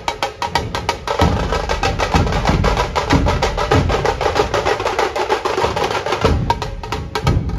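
Dhol-tasha drum ensemble playing: deep thuds from large barrel dhols under a dense, rapid stream of sharp tasha strokes.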